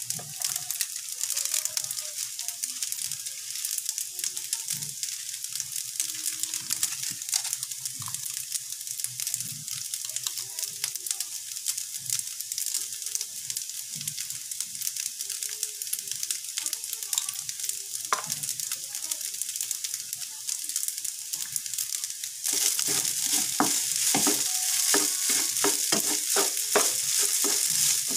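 Leftover cooked rice sizzling and crackling as it fries in a nonstick frying pan. About 22 seconds in the sound steps up louder, with rapid scraping and ticking as a spatula stirs and turns the rice through the pan.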